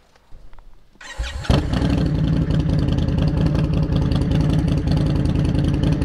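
2020 Indian Scout Bobber Twenty's V-twin engine being started: it cranks briefly about a second in, catches half a second later, and then idles steadily.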